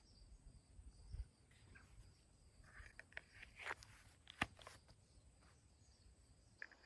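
Near silence: faint rustling and light clicks of a person shifting his stance, with one sharper click about four and a half seconds in.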